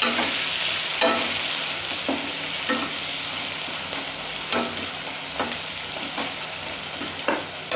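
Sliced onions and whole spices sizzling in hot mustard oil in a kadhai, with a spatula scraping and knocking against the pan about once a second as they are stirred. The sizzle slowly gets a little quieter.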